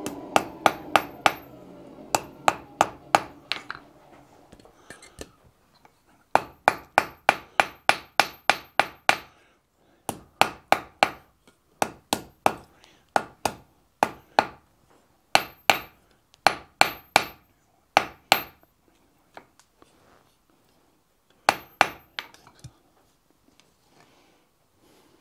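Hand hammer striking a red-hot split iron bar on a steel anvil, in quick bursts of about three to four blows a second with pauses between. Each strike rings high and bright off the anvil. The blows are shaping the forked end of a hand-forged key's bow.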